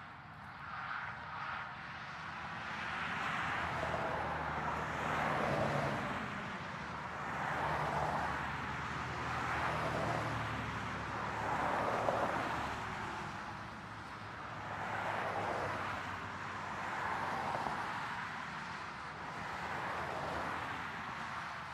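Road traffic: cars passing one after another, each swelling and fading as its engine and tyres go by, about every two to three seconds. A low engine hum runs under the first half.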